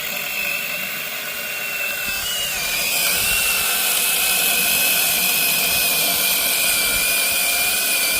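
Mini battery chainsaw (21 V) running with a steady high whine. About two and a half seconds in the pitch dips slightly and the sound gets louder and hissier as the chain cuts into wood.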